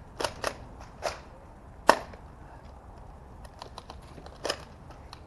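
Nerf Rival blasters firing in short sharp snaps: two quick ones at the start, another about a second in and the loudest about two seconds in, then a run of lighter clicks and one more snap near the end.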